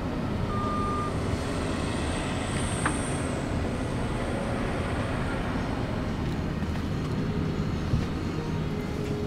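Steady low rumble of a car running, heard from inside the cabin, with a brief thin tone about half a second in.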